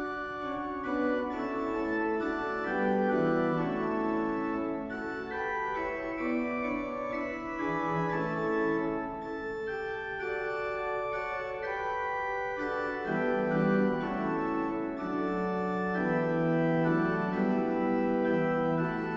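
Organ music: slow, sustained chords and held notes.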